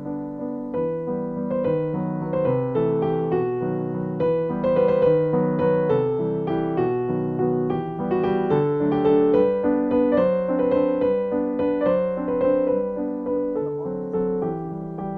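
Background piano music: a gentle keyboard piece of steadily moving notes.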